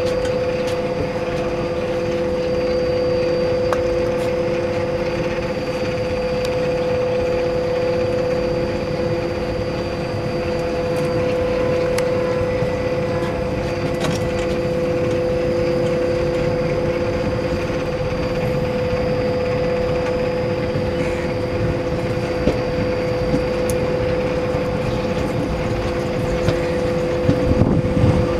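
Rebuilt Alco diesel locomotive accelerating under heavy load, its engine chugging hard with a steady high whine held over the rumble.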